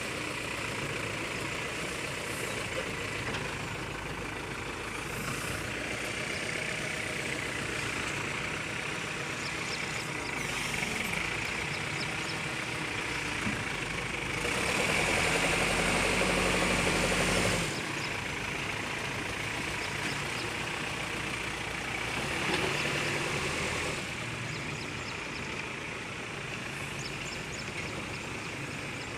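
Bulldozer's diesel engine running steadily. It grows louder for about three seconds around the middle, then settles back.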